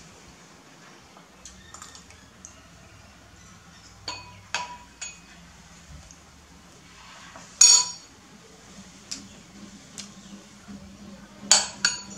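Metal spoon clinking and scraping against ceramic eating bowls: scattered sharp clinks with a brief ring. The loudest clink is about two-thirds of the way through, and there is another cluster near the end.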